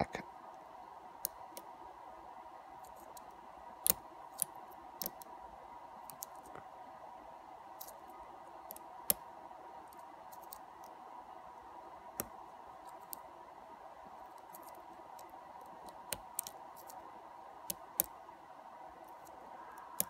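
Small, irregular clicks and ticks of a lock pick and tension wrench working the pins of a pin-tumbler lock cylinder during picking, over a faint steady hum.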